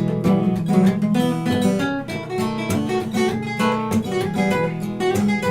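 Acoustic guitars playing an instrumental break, with rapid picked notes over strummed chords.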